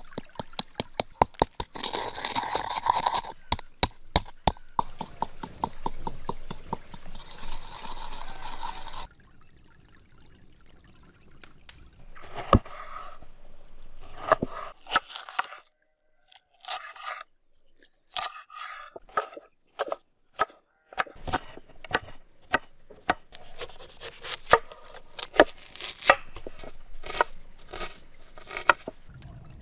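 Wooden pestle knocking and grinding peppercorns in a wooden mortar, a quick run of clicks over the first third. Later a chef's knife cuts tomatoes and chops onion on a wooden cutting board, with sharp taps of the blade on the board.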